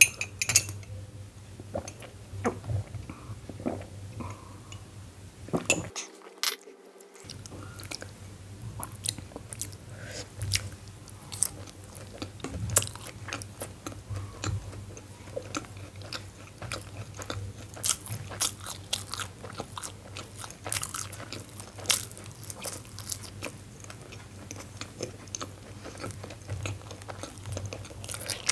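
Close-miked chewing of soft steamed momos (dumplings): irregular mouth clicks and smacks, over a low steady hum, with a brief gap about six seconds in.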